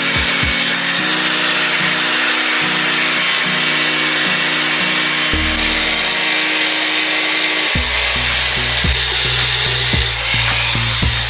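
Power tool cutting steadily, a loud high rasp that holds throughout, over background music that picks up a low beat about eight seconds in.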